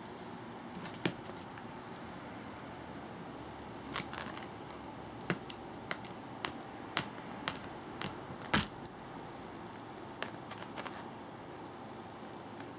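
Scattered light taps and clicks of a feathered cat-teaser toy on a wand slapping the tatami and being batted by a cat. A quick cluster of clicks with a short high ring comes about eight and a half seconds in.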